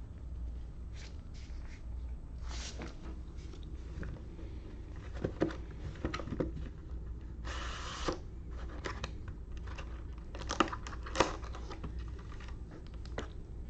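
Hands opening a sealed trading card box: plastic wrap and packaging crinkling and tearing in short rustles, with one longer rip about eight seconds in and a few sharp clicks a little after ten seconds.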